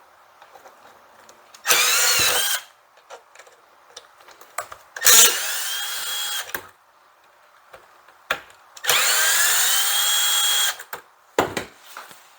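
Cordless power drill/driver run in three bursts of one to two seconds each, plus a short blip near the end. Each burst spins up with a sliding pitch and then holds a steady whine.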